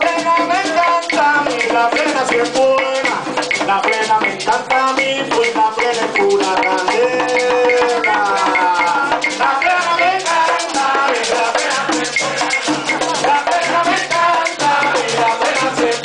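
Live plena music: a man sings lead over panderos (hand frame drums) beaten in a steady rhythm and a güiro scraped along with them.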